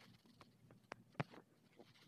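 Faint, sparse taps and clicks over a quiet room, the sharpest two about a second in.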